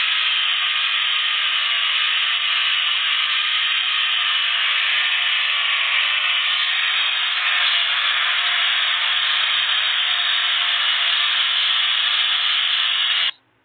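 Electric angle grinder running steadily with a polishing wheel on a stainless steel square tube. The sound cuts off suddenly near the end.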